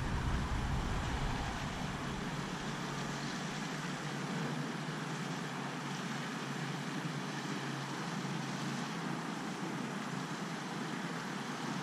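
Steady hiss of distant road traffic, with a low rumble that drops away about a second and a half in.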